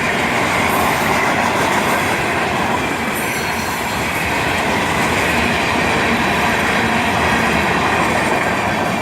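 Florida East Coast Railway freight cars rolling past at track side: a steady loud noise of steel wheels on the rails, with a faint high squeal of wheels against rail.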